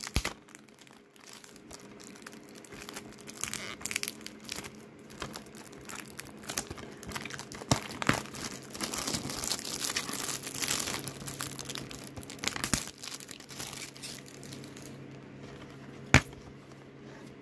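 Clear plastic shrink-wrap being torn and peeled off a DVD case, crinkling and crackling in irregular bursts. A single sharp click comes about sixteen seconds in.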